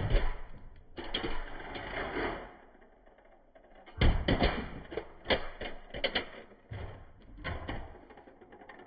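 Toy cars rolling off board ramps and landing on carpet: bursts of sharp plastic clattering and knocking as they hit and tumble, several times over.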